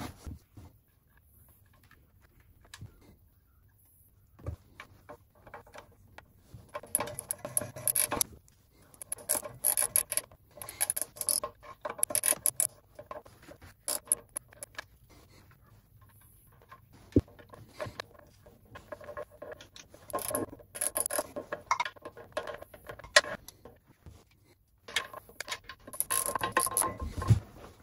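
Ratchet spanner clicking in short rapid bursts, with pauses between, as the sump pan bolts are run in and tightened.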